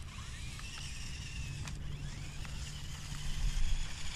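Electric motor and gearbox of a Flytec 9118 1:18-scale RC crawler whining, the pitch rising and falling with the throttle, over low rumbling wind noise on the microphone.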